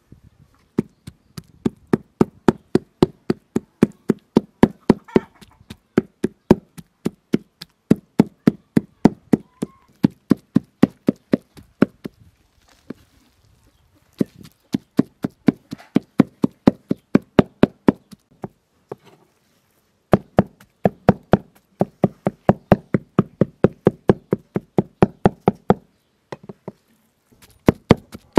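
A heavy kitchen knife chopping raw chicken breast on a wooden cutting board, hand-mincing the meat. It strikes rapidly and evenly, about four to five knocks a second, in runs broken by a few short pauses.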